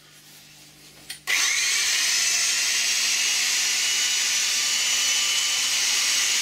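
Vintage corded electric drill switched on a little over a second in, its motor spinning up and then running steadily at speed with no load.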